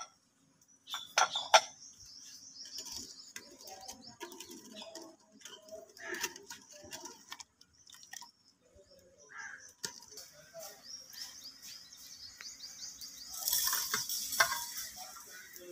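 A metal ladle knocking and scraping against an aluminium pot while it stirs milky rice pudding, with two sharp knocks about a second and a half in. Birds chirp in the background, most busily near the end.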